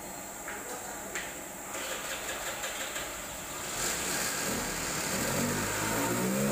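An engine running and revving up, its pitch rising over the last couple of seconds. Before that come a few light clicks of metal parts being handled.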